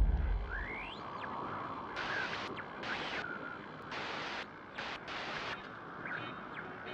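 GoPro logo intro sound effect. A deep boom fades out, then a bed of hiss with short whistling glides, broken by four bursts of glitchy static.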